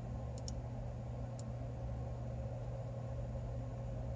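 A steady low hum, with a few faint clicks in the first second and a half.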